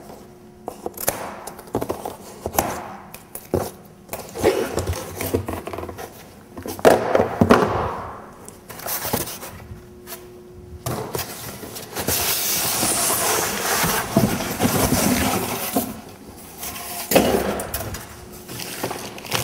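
A cardboard shipping box being opened and handled: irregular scrapes, knocks and rustles of flaps and packing, then a few seconds of steady scraping past the middle as the box is slid up off the plastic-wrapped machine.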